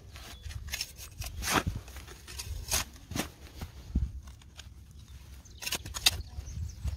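Metal-detecting spade digging into dry, clumpy soil: a string of irregular crunching stabs and scrapes, roughly one a second, over a low rumble.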